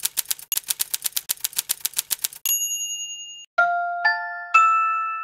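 Typewriter keys clacking rapidly, about eight a second, ending in the carriage-return bell's ding about two and a half seconds in. Then three bright chime notes are struck about half a second apart, each higher than the last, and left ringing.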